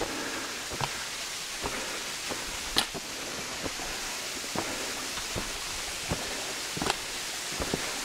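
Footsteps crunching in snow, roughly one step every second or less, with a sharper crunch about three seconds in. Under them is a steady rushing hiss.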